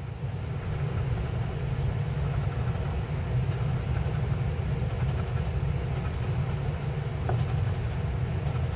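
A coin scraping the scratch-off coating off a lottery ticket: a steady rough scratching that gets a little louder about a second in.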